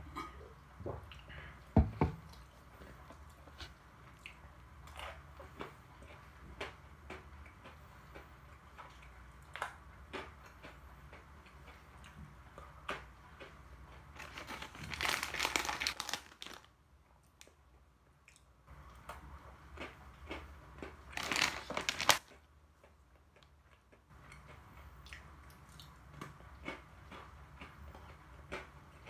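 Close-up crunching and chewing of almond Pepero, chocolate-coated biscuit sticks with almond pieces, with small scattered bite clicks. A couple of sharp knocks come about two seconds in. Two stretches of plastic packaging rustle, one about halfway through and a shorter one a few seconds later.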